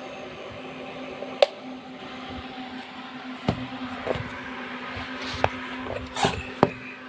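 Electric fans running with a steady hum, broken by about half a dozen sharp clicks and knocks, the loudest about a second and a half in.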